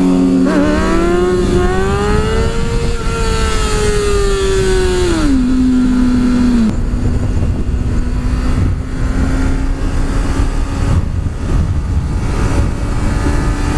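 Sportbike engine under way: its pitch rises for the first few seconds, holds, drops about five seconds in, then settles to a steady lower pitch at cruise, with heavy wind rush on the microphone underneath.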